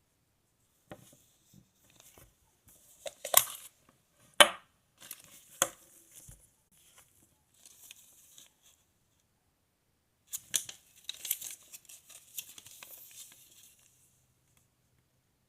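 Close handling noises: a string of sharp clicks and rustles, the loudest about three and four and a half seconds in, then a stretch of dense crinkling from about ten to fourteen seconds in.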